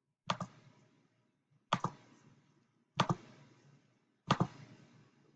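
Four sharp double clicks about one and a third seconds apart, made while stepping through the circuit's test inputs.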